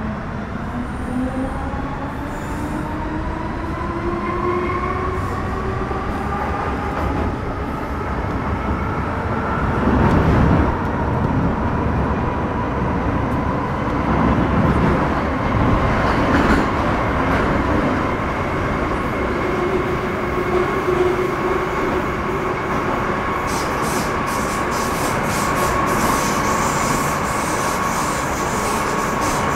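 Metro-Cammell M-Train electric multiple unit heard from onboard, its GEC GTO chopper traction equipment whining in several tones that rise in pitch over the first ten seconds or so as the train gathers speed, then settle into a steady high whine over the rumble of wheels on rail. Near the end a rapid run of faint high ticks comes in.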